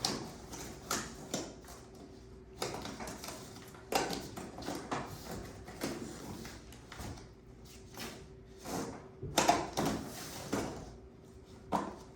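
Sheet-metal vent duct pieces being handled and fitted together: irregular clanks, knocks and scrapes, busiest about a third of the way in and again toward the end, over a faint steady hum.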